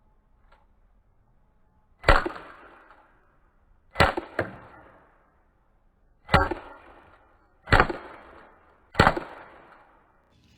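Crosman GF600 airsoft gun firing five shots, one every second or two, at a full soda can. Each shot is a sharp crack that fades over about a second, and a smaller crack follows just after the second shot.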